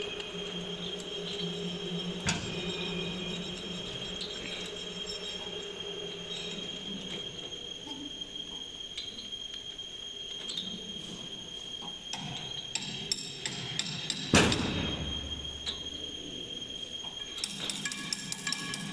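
Metal parts and tools clinking and knocking against the steel frame of a machine during hands-on adjustment. There are scattered clicks, a sharp knock early on and the loudest knock about fourteen seconds in, over a steady high-pitched whine.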